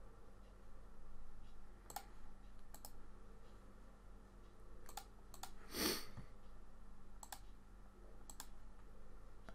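Computer mouse clicks, single and in quick pairs, scattered every second or two over a steady low electrical hum. A short, louder rush of noise just before six seconds in is the loudest thing.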